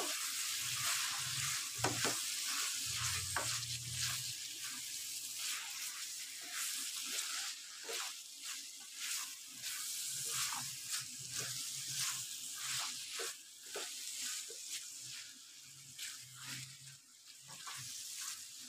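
Bitter gourd and chana dal frying in a pan, with a steady sizzle, while a spatula stirs and scrapes against the pan in frequent short strokes.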